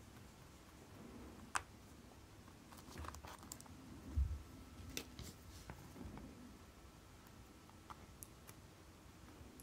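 Scattered faint clicks and light taps of small tools and watch parts being handled during work on a mechanical chronograph movement, with a dull thump about four seconds in.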